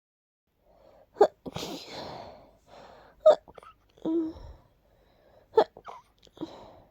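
A person sneezing three times, about two seconds apart. Each sneeze is a short, sharp burst, with quieter breathy sounds from the buildup between them, one of them a short voiced 'ah'.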